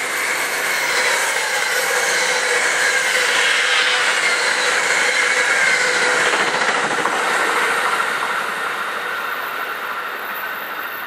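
New Jersey Transit Arrow electric multiple-unit train passing at speed: a loud rush of wheels on rail with a whine running through it. It builds over the first second, holds for several seconds, then fades away over the last few seconds as the cars go by.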